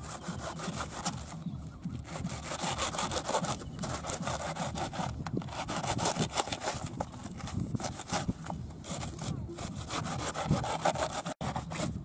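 Hand saw cutting through banana tree trunks, in repeated back-and-forth strokes.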